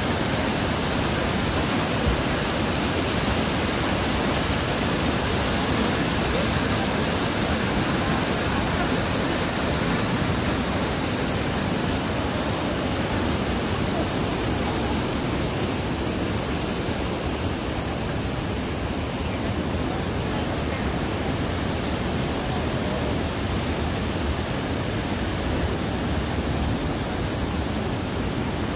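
Rushing water of a mountain creek pouring over a rocky cascade: a steady, unbroken rushing noise, slightly softer in the second half.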